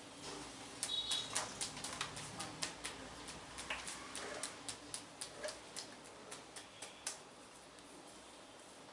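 Rapid, light tapping of a massage: sharp taps at about four a second, growing fainter toward the end and stopping about two seconds before the end.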